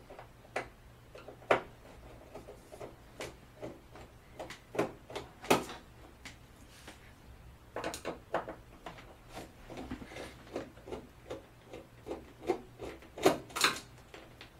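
A screwdriver working screws out of an LCD TV's back cover: a run of small, irregular clicks, with a few louder ones about five and a half seconds in and near the end.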